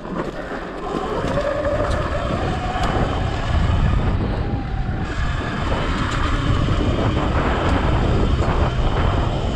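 2019 Sur-Ron X electric dirt bike ridden fast over a rocky gravel trail: a steady rush of wind on the microphone and tyre and chassis rumble with scattered sharp knocks from rocks, the rumble growing heavier after a few seconds. A faint rising whine comes through about a second in.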